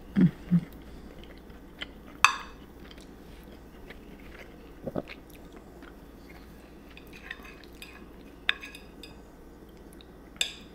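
Someone eating breakfast with a metal fork off a plate: quiet chewing, with a few sharp clinks of the fork against the plate scattered through. Two short low sounds come right at the start.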